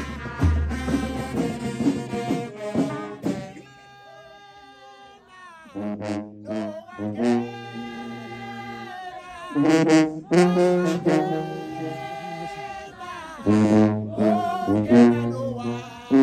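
Brass band playing long held chords that swell and fade, with a quieter, thinner passage about four seconds in before the full band comes back in.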